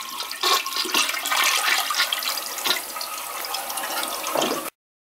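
Toilet flushing: water rushing and swirling down the bowl, cutting off suddenly near the end.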